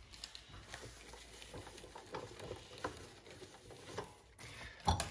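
Faint rubbing and rustling of a paper towel as a hand wipes down a chrome kitchen tap and a wall-mounted plastic soap dispenser, with scattered light taps and one sharper knock near the end.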